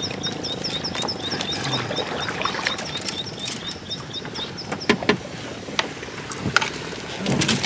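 A high chirping call repeating about four times a second, which stops about five seconds in. It is followed by a few knocks and splashes as fish traps are handled in a small boat.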